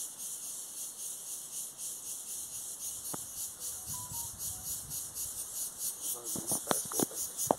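A steady, high-pitched chorus of insects shrilling, pulsing rapidly, with a few short knocks near the end.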